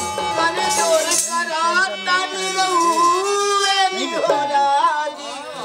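A man singing a song about a husband into a handheld microphone, his voice gliding up and down in a folk melody.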